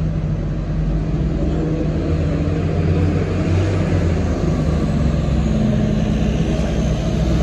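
City transit buses' engines running: one bus idling at the platform while another drives past, a steady low hum that swells slightly in the second half.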